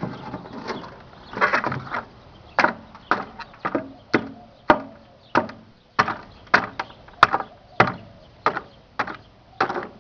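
Sharp cracks and pops at irregular intervals, roughly one to two a second, from a running microwave oven as the item inside arcs and burns.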